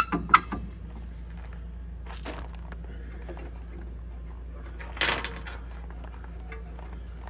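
Hand tool clicking sharply against metal a couple of times near the start, then two short rasps, as it works the star-wheel adjuster inside a rear drum brake. The adjuster is being backed off to relieve shoes that have the wheel locked up solid.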